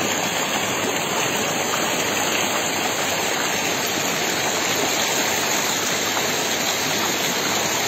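A fast, shallow river rushing over boulders and through small white-water rapids: a steady, unbroken rush of water.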